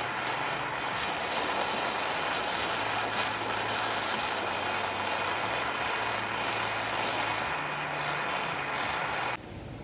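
Handheld gas torch running steadily, its flame hissing against a steel connecting rod's small end, which is being heated to expand it so a piston pin can slide in. The hiss cuts off suddenly near the end.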